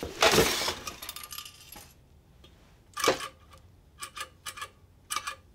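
An Instant Pot pressure cooker's metal housing being handled: a loud knock or scrape about a quarter second in, then a few light metallic taps and clinks with a short ring, one about three seconds in and a quick cluster near the end.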